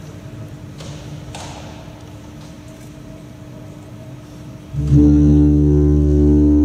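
Quiet ice-rink arena ambience, then about five seconds in the skater's short-program music starts loudly with sustained low notes.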